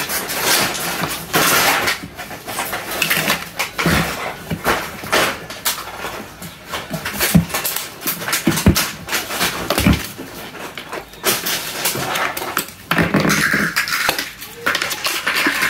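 Hard plastic toy pieces being handled and snapped together: irregular clicks and knocks of plastic on plastic, with stretches of scraping and rubbing as the parts of a toy doctor table are fitted.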